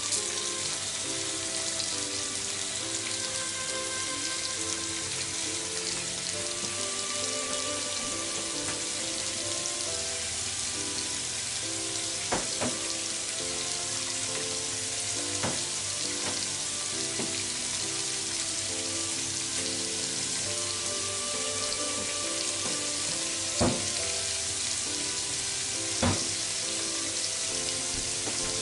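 Shredded cabbage, Chinese cabbage and onion sizzling steadily in hot oil in a frying pan, over soft background music. A few brief knocks are heard at intervals.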